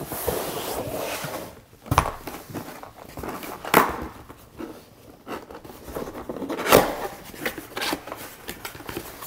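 A cardboard box being opened by hand: a scraping rustle of cardboard for the first second or so, then a few sharp clicks and taps as the flaps are pulled open.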